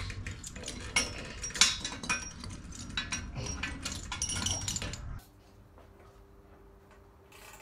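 Ratchet clicking and metal tools clinking as a long-handled socket ratchet is worked on an oil pump mounting bolt of an engine block on a stand. The clicks are irregular, and the sound drops to a faint low hum about five seconds in.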